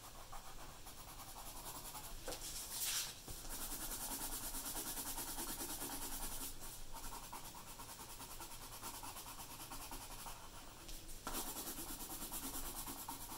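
Coloured pencil scratching steadily on paper as a shape is coloured in, with a brief louder rustle about three seconds in as the sheet is shifted.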